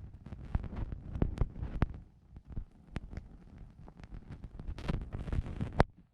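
Wind buffeting and a string of sharp knocks and rattles on a drone-mounted action camera's microphone, with one loud sharp bang near the end, after which the sound drops away suddenly.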